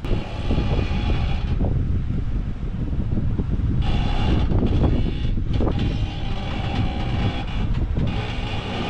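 Jeep Wrangler Rubicon crawling over rock: a steady low engine and drivetrain rumble with repeated knocks and clatter. A higher whine comes and goes several times.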